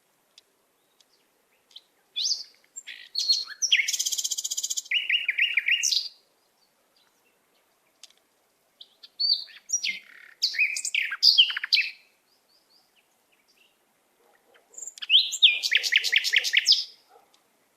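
A bird chirping and singing in three bursts of quick high notes and rapid trills, with quiet gaps of a few seconds between them.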